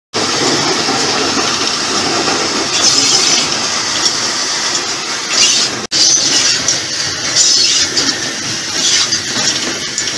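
Steam locomotive on the move, heard from inside its cab: a loud, steady rattle and rush with hissy surges, cut off for a moment about six seconds in.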